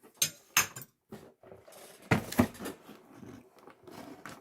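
A toy's packaging box being opened from the side and its contents pulled out: a few sharp knocks and clicks, then rustling with louder knocks about two seconds in.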